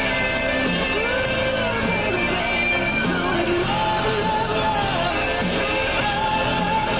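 Rock and roll music: a singer over guitar.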